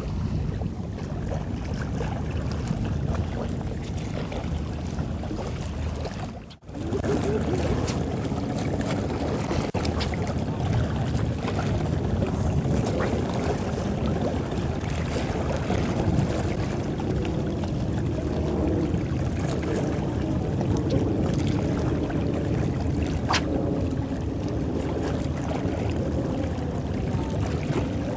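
Steady low, noisy seaside rumble of wind and choppy water, with a brief dropout about six and a half seconds in.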